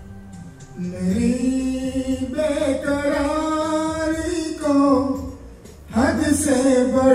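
A man singing into a microphone, holding long notes in one phrase that starts about a second in, then a brief pause and a new phrase near the end.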